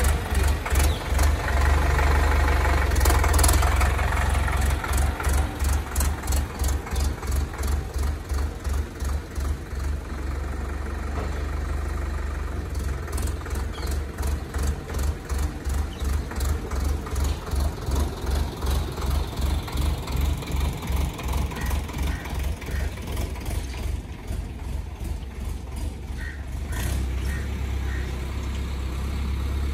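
Indo Farm 3065 DI diesel tractor engine running with an even, rapid pulsing beat as the tractor works across the yard. It is loudest in the first few seconds, then quieter and steady as it moves off.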